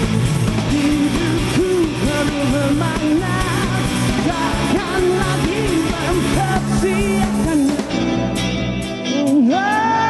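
Rock band with electric guitar, bass and drums under a lead vocalist singing. Near the end the bass and drums drop away, leaving light evenly spaced ticks, and the voice slides up into a long held note.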